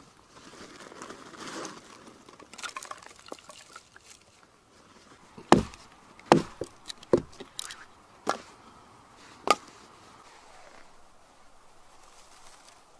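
Hatchet chopping wood: about half a dozen sharp, irregular strikes, roughly one a second, after some soft rustling of twigs and wood being handled.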